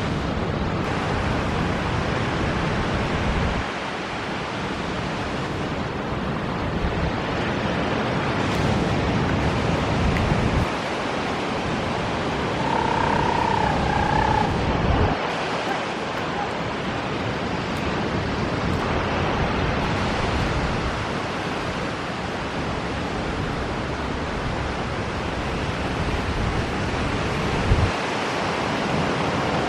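Ocean surf and wind making a steady rushing noise, its low rumble dropping away and returning a few times, with a short warbling whistle about halfway through.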